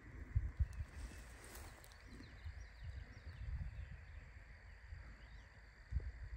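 Outdoor pasture ambience: low, irregular thumps and rumbles from walking with the camera, loudest just after the start and again near the end, with faint high chirping in the background.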